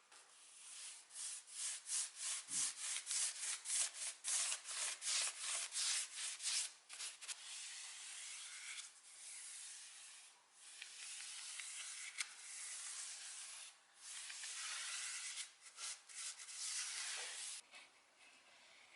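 Sandpaper rubbing on wood by hand: quick back-and-forth strokes for the first several seconds, then longer, even passes with short pauses between them.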